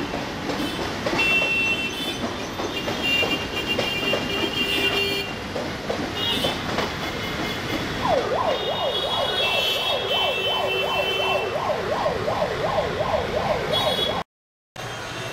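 Passenger train coaches rolling past on the track, a steady running noise with intermittent high squeals. From about eight seconds in, an emergency-vehicle siren joins it, sweeping rapidly up and down about three times a second. The sound breaks off abruptly near the end.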